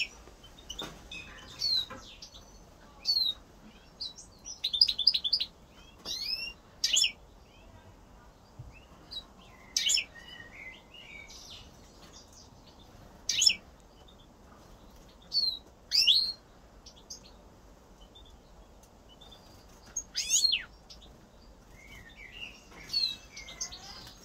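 European goldfinch giving short chirping calls and brief twitters, in scattered bursts a few seconds apart.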